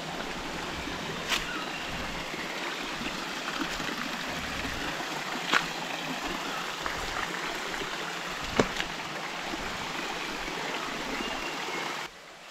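Shallow mountain stream running over rock steps, a steady rush of water, with about three short sharp knocks. The rush drops away suddenly near the end.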